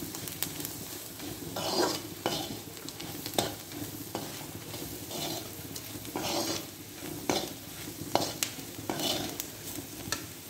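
Perforated metal spatula stirring peanuts and sliced onions frying in oil in a metal kadhai: irregular clinks and scrapes of metal on metal over a steady sizzle.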